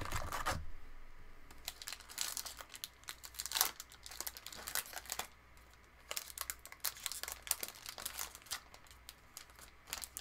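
Foil wrapper of a baseball card pack crinkling and tearing as it is opened, in bursts of crackly rustling with short pauses between them.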